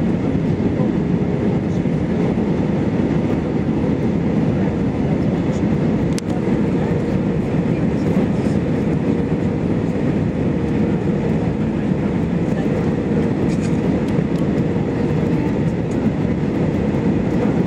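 Steady rumble of engine and airflow noise inside the passenger cabin of an Airbus A319 descending on approach, with a faint steady hum running under it.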